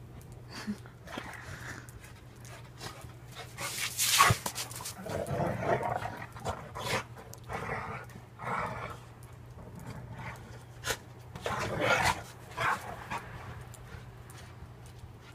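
A dog panting in irregular bursts, with a few short sharp clicks between them.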